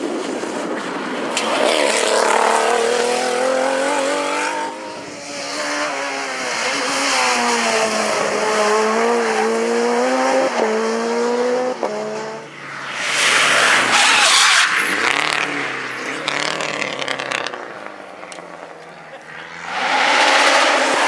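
Rally car engine running hard, its pitch climbing and dropping suddenly with gear changes as the car passes. Loud bursts of rushing noise come in about two-thirds of the way through and again near the end.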